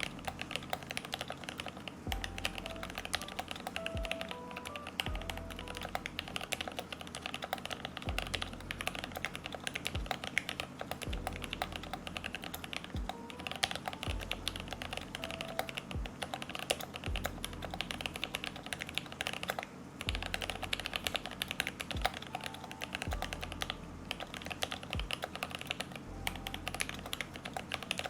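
Fast, continuous typing on a TOKYO60 mechanical keyboard with Noir Rose linear switches, lubed with Krytox 205g0 and filmed, in a case dampened with foam and felt. Background music with a low beat about once a second plays under the keystrokes.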